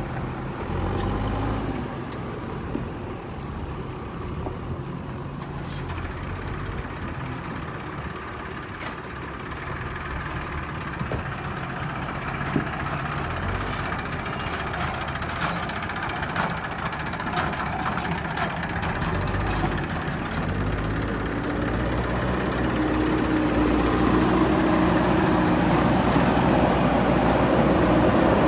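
JCB backhoe loader's diesel engine running under load, with scattered sharp knocks in the middle. The engine rises in pitch and gets louder over the last few seconds.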